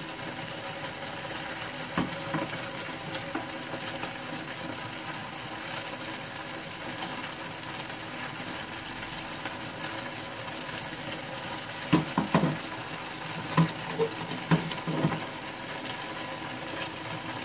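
Oil sizzling steadily in a frying pan over high heat, a starch-and-water batter frying into crispy dumpling 'wings'. A few sharp clinks of utensils come about two seconds in and again several times near the end.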